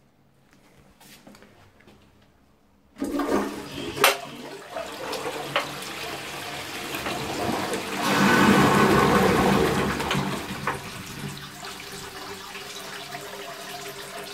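A high-level cistern flushing into a 1930s Crystal toilet pan. The water starts with a sudden rush about three seconds in, with a sharp knock a second later, and is loudest about eight seconds in as it swirls through the bowl. It then eases to steady running water. The flush sounds like a very old cast iron bell syphon cistern.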